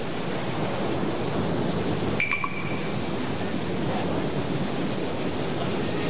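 Steady rush of sea waves and surf in shallow water, with wind.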